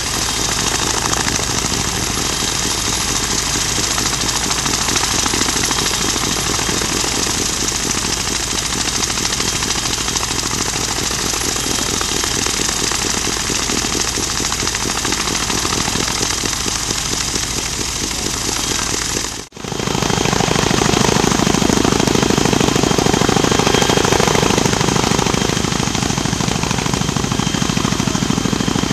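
CH-46E Sea Knight tandem-rotor helicopter running with its rotors turning: a steady, rapid blade chop with a thin high whine. About two-thirds of the way through there is a brief dropout at a cut, and after it the helicopter is hovering and the low chop is louder.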